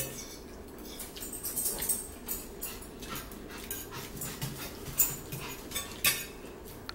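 Close-up eating sounds: chewing and mouth smacks with forks clicking against plates, in irregular short clicks, a couple of louder ones about five and six seconds in.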